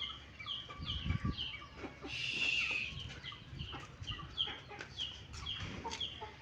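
Aseel chickens calling: short, high, falling peeps repeated about twice a second, with one louder, harsher squawk about two seconds in. A few low thumps about a second in.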